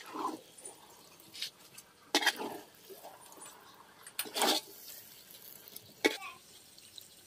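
A handful of short, separate clinks, scrapes and rustles of serving utensils and food being handled, with quiet gaps between them.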